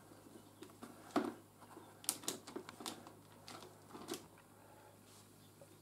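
Light clicks and crinkles of a clear plastic food tray being handled as slices of cured ham are picked out of it. The clicks come irregularly and die away after about four and a half seconds.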